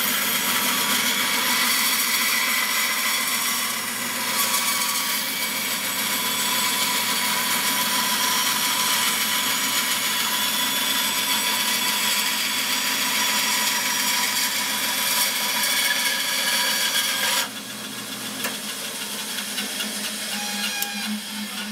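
Band saw running with its blade cutting a straight line through a piece of wood, a steady rasping saw noise over the motor's hum. About four seconds before the end the cutting noise drops away, and shortly after the motor hum cuts out, leaving the saw winding down.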